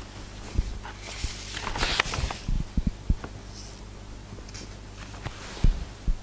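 Papers rustling and soft knocks as notes are handled and pages turned, over a low steady hum.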